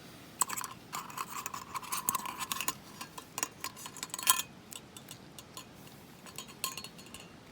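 Metal camp cookware being handled: a dense run of clinks and rattles with a ringing metallic note, then a few lighter clicks near the end.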